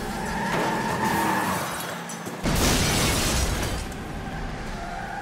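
Video-game car crash sound effects: a running car engine, then a sudden loud crash with breaking glass about two and a half seconds in.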